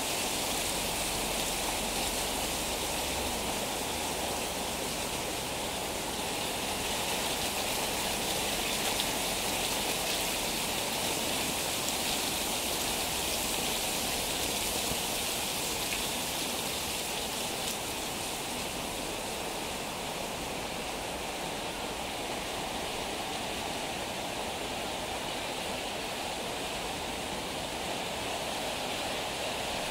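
Heavy tropical rain pouring down on a paved street and house roofs: a steady, even hiss of rainfall.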